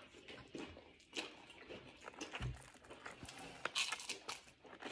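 Tortilla chips being bitten and chewed: scattered crisp crunches, densest near the end, with one dull knock about halfway through.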